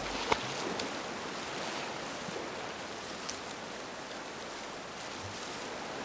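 Fast-flowing stream water rushing past a grassy bank, a steady even wash, with a few faint clicks in the first second.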